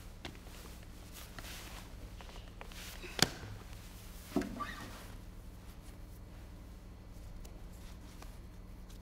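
A seated guitarist shifting on his chair with a classical guitar and footstool: a sharp knock about three seconds in and a duller thump with a brief ring a second later, over a steady low electrical hum.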